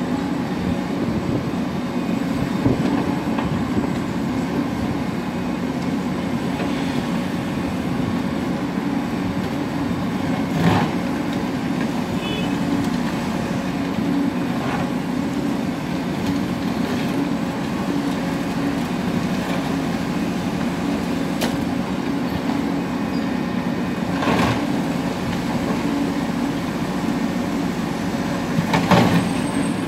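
Heavy tracked excavators' diesel engines running steadily while their hydraulic crusher attachments break up a concrete bridge deck, with a few sharp knocks of concrete cracking and falling, the loudest near the end.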